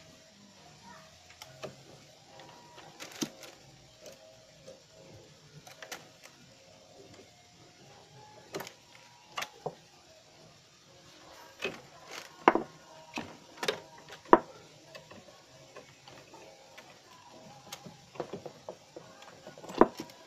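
Irregular sharp clicks and knocks of hands pulling cable plugs from a desktop motherboard's back panel and handling the board, with a cluster of the loudest about two-thirds through and another near the end.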